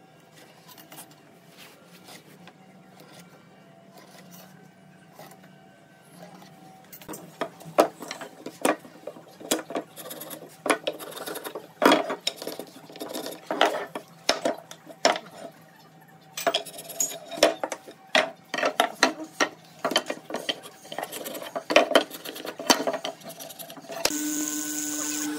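Pine battens and small wooden pieces knocked and clattered together on a wooden workbench, many sharp knocks after a quiet start of faint scratching. Near the end a bench mortising machine's electric motor starts and runs with a steady hum.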